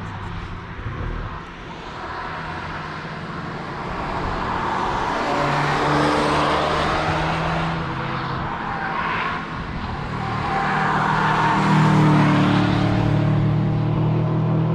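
Cars passing on a race track, engines running hard, each engine note swelling as the car goes by. One pass peaks about six seconds in and a louder one about twelve seconds in.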